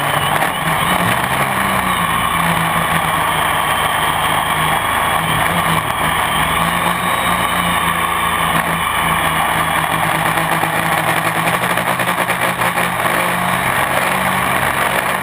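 Gaui 500X quadcopter's electric motors and propellers buzzing steadily in flight, heard from a GoPro mounted on the frame; the pitch wavers a little as the craft manoeuvres and climbs.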